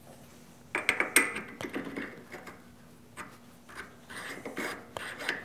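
Metal-on-metal clicking and scraping as a steel rod is worked into the bore of a part chucked in a stopped lathe, a fit check. It is a string of light clicks, knocks and rubs starting about a second in.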